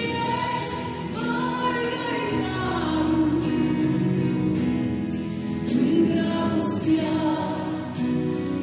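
A woman and a man singing a Romanian Christian worship song as a duet with long held notes, accompanied by an electronic keyboard.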